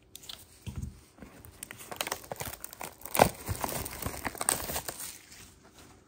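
Plastic shrink wrap being torn and crinkled off a sealed trading-card hobby box with gloved hands: a dense run of crackling, loudest about three seconds in.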